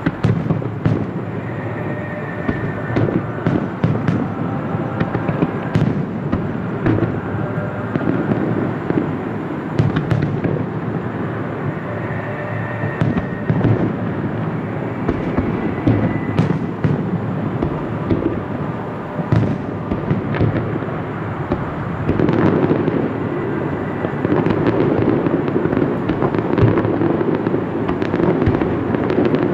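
Aerial firework shells bursting in quick succession, a dense run of booms and crackles that builds to a fuller barrage in the last several seconds.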